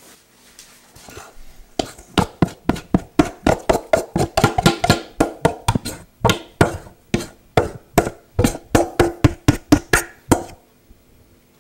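Metal spoon knocking and scraping against glass mixing bowls while sticky bread dough is worked out of one bowl into another: a quick run of ringing clinks, about three or four a second, stopping near the end.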